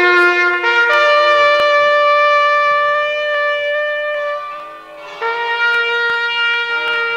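Solo trumpet playing a slow ceremonial call of long held notes, stepping up through a rising arpeggio, with a short breath near the middle before the next phrase.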